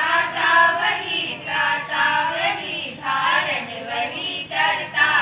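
Girls' voices singing a prayer together into a microphone, in short phrases of about a second with brief breaks between them.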